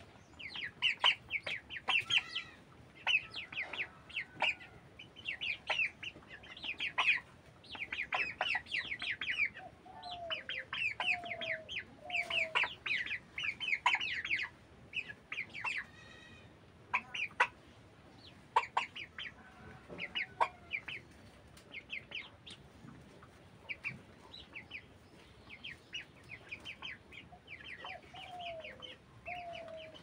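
Broiler chickens clucking and calling: dense runs of short, high calls come and go throughout, with a few lower, falling calls in sets of three about a third of the way in and again near the end.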